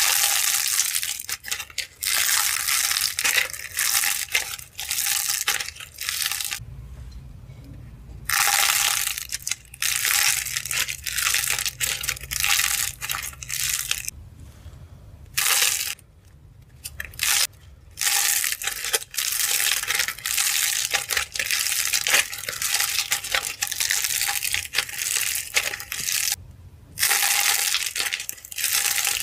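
Dried clay coated in glitter being cracked and crushed: crisp crackling and crunching in bursts of a few seconds, with short pauses between.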